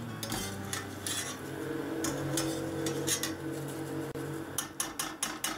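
Metal skimmer scraping and clinking against a stainless steel frying pan as fried potato chips are scooped out of the oil, with a quick run of sharp taps near the end.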